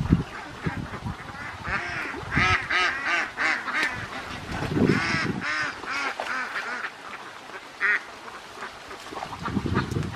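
A flock of domestic ducks quacking, many short calls overlapping in quick runs, busiest in the middle.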